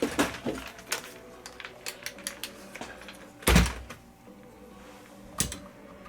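Scattered clicks and knocks of handling work on a TV set being plugged in, with a louder thud about three and a half seconds in and a sharper knock near the end.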